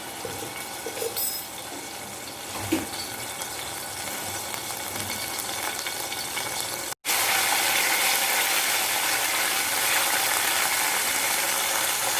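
Ginger-garlic paste sizzling in hot coconut oil in a pan as it sautés, a steady frying hiss with a single knock about three seconds in. After a brief break about seven seconds in, the sizzle is louder.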